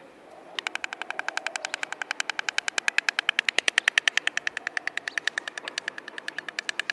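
White stork bill-clattering: a fast, regular rattle of beak clacks, about ten a second. It starts about half a second in, grows louder toward the middle and eases slightly near the end.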